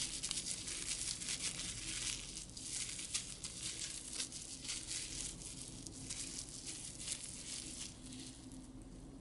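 Thin polyethylene Ilap food bag crinkling and rustling in quick, irregular crackles as hands squeeze and shape cooked rice inside it into a rice ball, growing fainter near the end.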